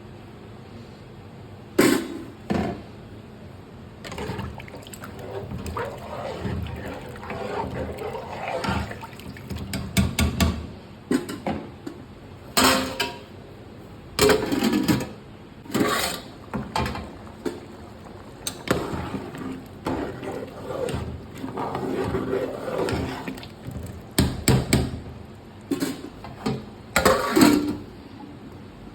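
Irregular knocks and clatter of kitchen utensils, mixed with splashing and running water.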